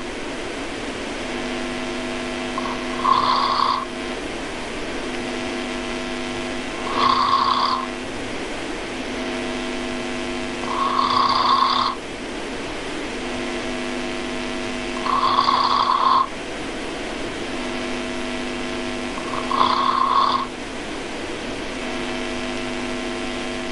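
A person snoring: five loud snores, one about every four seconds, with a steady humming tone in between.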